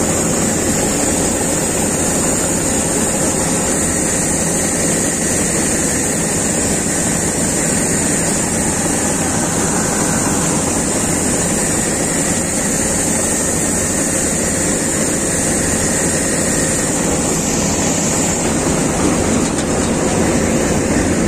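Combine harvester running steadily at close range while its unloading auger pours wheat grain into a trolley: a constant loud machine drone with a hiss over it, unchanging throughout.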